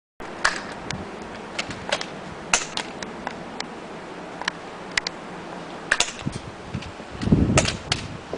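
Airsoft guns firing during a game: a string of sharp clicks and pops at irregular intervals, some from BBs striking nearby. A brief low rumble, like wind or handling on the microphone, comes near the end.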